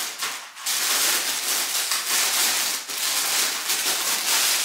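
Plastic-wrapped packs of press-on nails crinkling and rustling as they are handled and packed by hand: a busy, crackly rustle with many small ticks.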